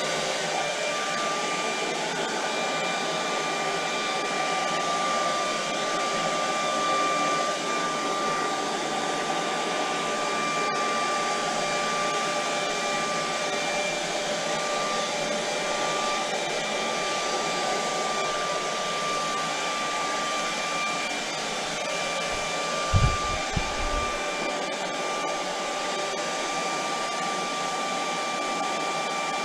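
Handheld hair dryer running steadily, a rush of air with a high steady whine, blowing wet poured acrylic paint across a canvas. A couple of low thumps come about two-thirds of the way through.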